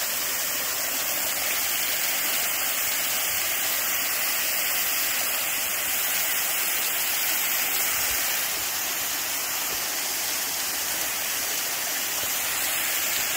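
Waterfall pouring down: a steady, unbroken rush of falling water.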